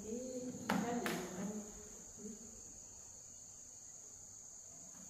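Insects chirring in a steady, high-pitched drone. A voice and two sharp clicks sound briefly in the first second or so.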